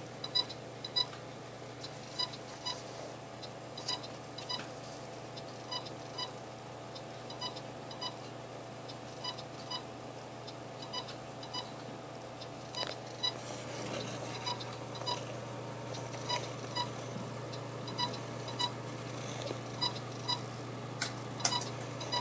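Desktop computer tower beeping: short, high beeps repeat over and over, about one or two a second, over a steady low hum. The cause is unknown to the owners.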